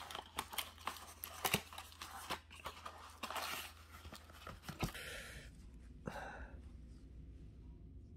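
A cardboard box being torn open and its plastic wrapping crinkled, with many short clicks and rustles of handling and two longer bursts of tearing about three and five seconds in.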